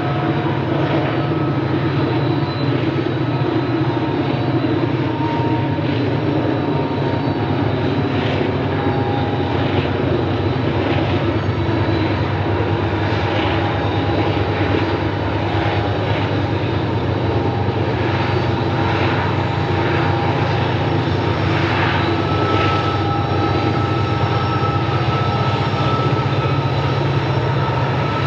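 Diesel-electric freight locomotives under heavy load, hauling a loaded coal train up a mountain grade. Their engines make a steady drone, with faint high steady tones over it.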